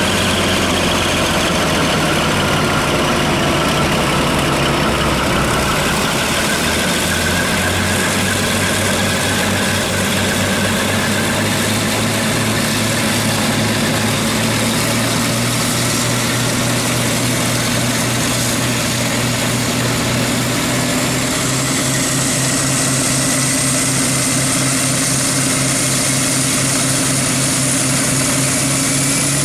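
Maybach V12 diesel engines of a DB V200 diesel-hydraulic locomotive running steadily and loud during a static engine run. The engine note steps up a little about a quarter of the way in, and a high whine rises steadily over the last third.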